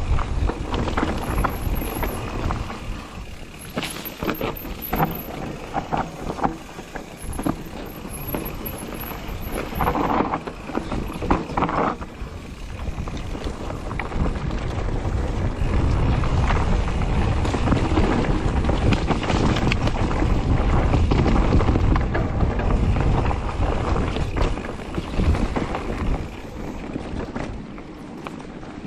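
Mountain bike riding fast down a dirt forest trail, heard from a camera on the rider: wind rushing over the microphone with the clatter of tyres and bike over bumps and roots. The wind rush grows louder and steadier a little past halfway as the speed picks up, then eases near the end.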